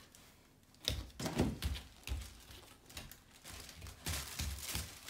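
A run of soft, irregular knocks and thumps, starting about a second in, from small children moving about and handling things on a foam floor mat.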